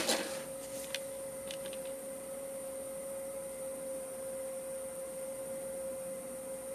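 CNC mini mill's spindle spinning with a steady high whine, with a few light clicks in the first couple of seconds.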